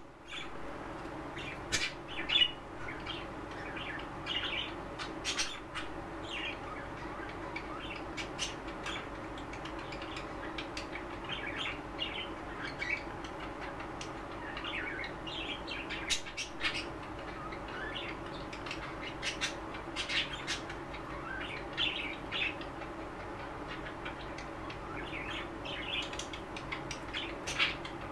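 Budgerigars chirping and chattering in their cage: short twittering calls come in quick, irregular runs throughout. There are a few sharp clicks, the loudest about two seconds in, over a steady low hum.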